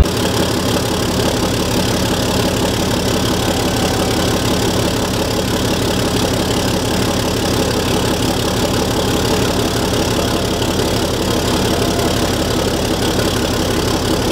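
Engine idling steadily at an even pitch, with a fine regular pulsing and no change in speed.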